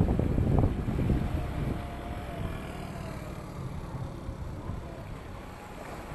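Small waves washing against a rocky seawall: a surge fades over the first two seconds, leaving a steady low rumble, with wind buffeting the microphone.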